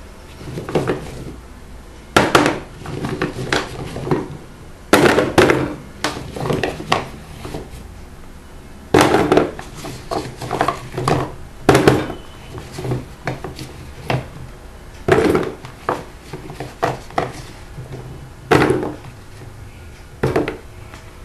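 Kitchenware being handled: a long series of irregular knocks and clatters, some with a short ring, as cookware and utensils are set down and moved about.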